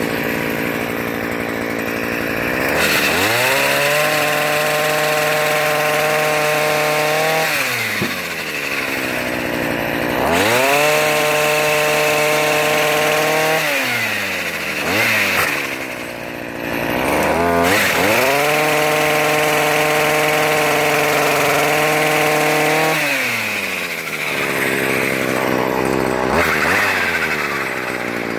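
Weed eater engine driving a pole-saw branch-cutter attachment. It is revved up to a high, steady pitch, held for several seconds, and let back down to idle, three times over, with a short blip of throttle in between, as the saw chain cuts branches.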